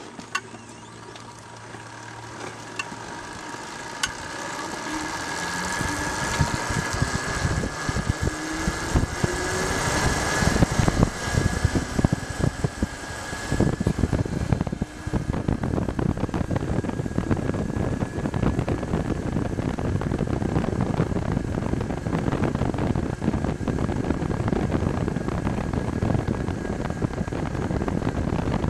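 Electric motorcycle's Briggs & Stratton Etek motor whining at a steady high pitch as the bike pulls away and rides, with a lower tone rising as it speeds up. Wind buffeting on the microphone grows over the first ten seconds or so and then stays steady with the road speed.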